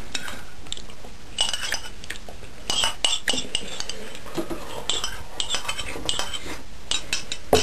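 Metal spoon clinking and scraping against a soup bowl: a string of short, irregular clinks.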